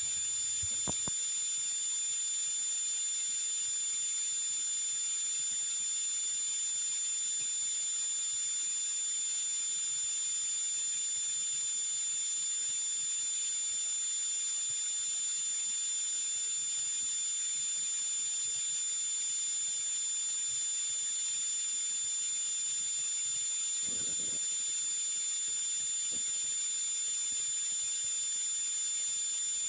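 A steady, unbroken high-pitched electronic tone over a hiss, holding at one level throughout, with a faint soft knock late on.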